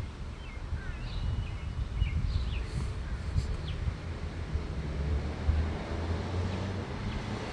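Outdoor ambience: a steady low rumble under scattered bird chirps, with a few short chirps and a briefly held high note in the first three and a half seconds.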